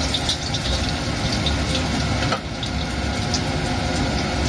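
Sliced shallots sizzling in hot oil in a stainless steel wok, stirred with a metal spatula that scrapes and ticks against the pan now and then, over a steady low rumble.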